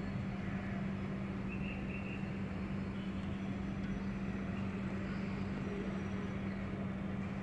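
Steady outdoor urban background noise: a constant low hum over an even wash of distant rumble, with no distinct events.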